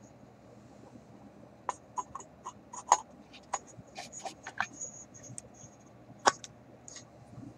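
About a dozen sharp, separate clicks and light taps over roughly five seconds, the loudest about three seconds in and again near the end. They are handling noise from work on the radio chassis.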